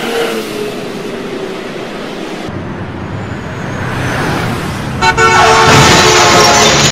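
Road traffic with vehicles passing, then a car horn sounding loudly and held for about two seconds near the end.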